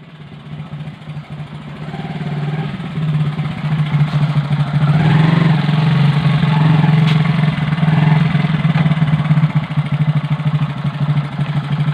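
Motorcycle engine running, building up in revs over the first few seconds and then holding steady. No brake squeal or scraping is heard from the freshly cleaned and sanded drum brake: the noise is gone.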